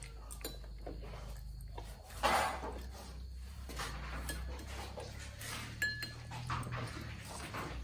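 Soft scattered clinks and knocks of spoons and bowls at a meal, with a dog whimpering briefly near the end.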